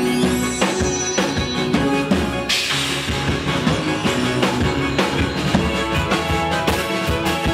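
Live progressive rock band playing an instrumental passage on bass guitar, electric guitar, keyboards and drum kit, with steady drum hits and a loud crash about two and a half seconds in.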